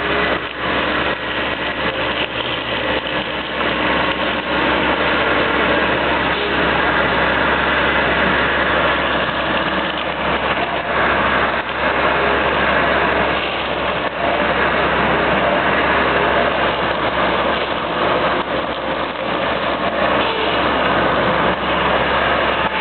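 Compact excavator running its boom-mounted hydraulic brush cutter: a steady engine drone with a high whine over it.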